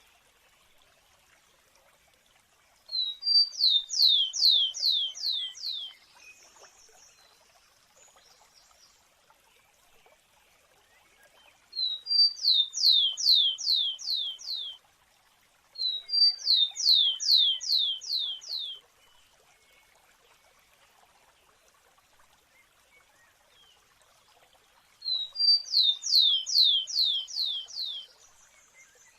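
A sparrow singing four times. Each song lasts about three seconds: a couple of short high notes, then a run of about six quick, downward-slurred whistles.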